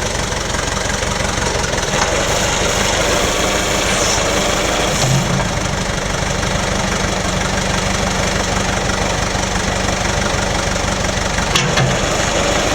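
John Deere 310B backhoe's diesel engine running steadily.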